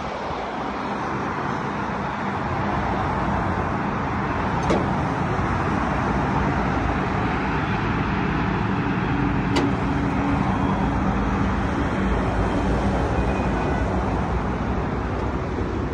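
A truck engine idling steadily, with two sharp clicks, one about five seconds in and one near ten seconds.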